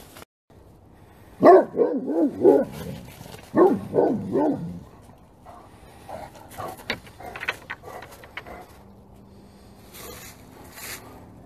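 Great Pyrenees dogs barking: a quick run of about five loud barks, then three more a couple of seconds later, then fainter barks tailing off.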